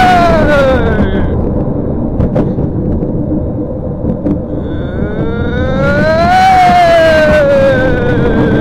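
Roller coaster train running along steel track: a steady rumble with a whine that falls in pitch in the first second, then rises and falls again from about five seconds in.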